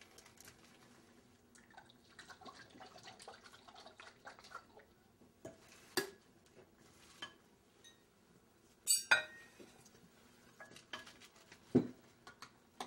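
Tableware clinking and scraping as salad is served with salad servers from a bowl and plates and cutlery are handled, with a few sharper knocks and the loudest clatter, a double clink, about nine seconds in.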